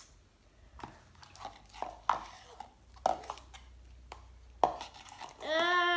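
Sticky slime being pulled by hand from a plastic tub it clings to, giving scattered short wet clicks and squelches. Near the end a child's voice makes a short drawn-out note that rises and falls.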